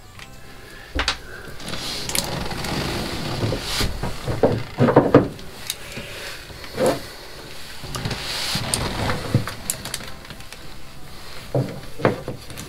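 Handling noise of gloved hands working close to the microphone: irregular rustling and rubbing against the fibreglass floor while sealant is squeezed from a tube around a drain plate, with a few soft knocks, loudest about five seconds in.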